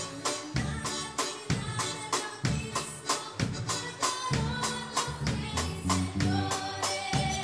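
Live band playing with a steady beat: drum kit, electric bass, nylon-string acoustic guitar and keyboard.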